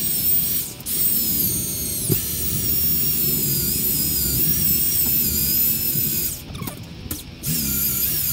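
Electric drill with a long twist bit running at speed: a steady high-pitched motor whine that dips in pitch briefly about two seconds in and stops about six seconds in.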